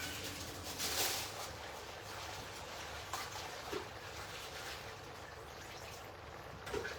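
Spinach leaves being washed in water: soft splashing and trickling, a little louder about a second in, then quieter.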